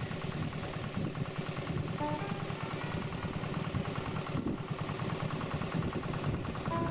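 Vintage stationary engine running steadily at idle, a fast, even train of firing beats.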